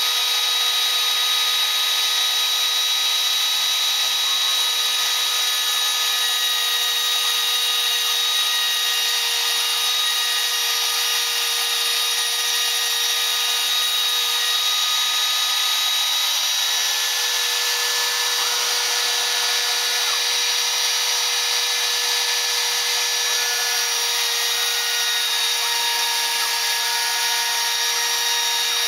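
Spindle of a home-built CNC router running steadily with a constant high whine. Short tones that shift in pitch come and go over it now and then.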